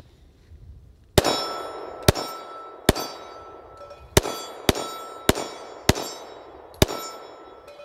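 Eight 9mm pistol shots from a Smith & Wesson Shield EZ 9mm, fired at an unhurried pace roughly half a second to a second apart. Each shot is followed by the ring of a struck steel plate target.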